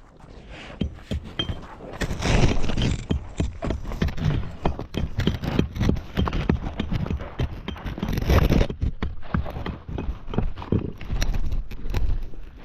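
A caver squeezing through a tight, rough rock passage: body and clothing scraping and knocking against the rock in irregular bursts, with frequent small knocks.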